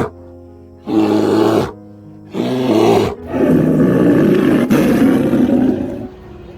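A large animal roaring: two short roars, then a longer drawn-out one, over background music.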